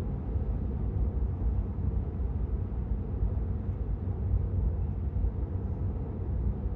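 Steady low rumble of tyre and road noise heard inside the cabin of a Tesla Model 3 cruising at motorway speed, with no engine sound from the electric drive.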